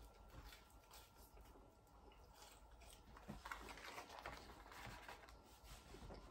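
Faint mouth sounds of chewing chips, then small rustles and taps as a cardboard chips carton is picked up and set down on the table, about three to five seconds in.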